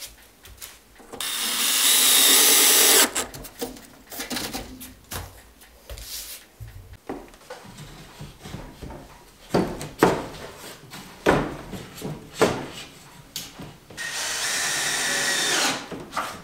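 Cordless drill running in two steady bursts of about two seconds each, one near the start and one near the end, drilling into a wooden 1x2 frame. In between, sharp knocks and clatter of the wooden side panel being handled and set in place.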